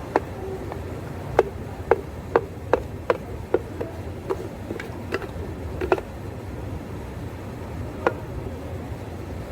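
A run of sharp knocks or taps, each with a brief ring, roughly two to three a second for about six seconds, with one more near the end, over a steady low hum.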